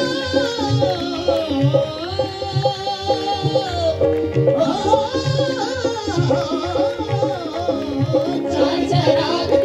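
Devotional bhajan performed live: a woman's voice sings a sliding, ornamented melody over the steady held drone of a harmonium, with tabla keeping a regular beat underneath.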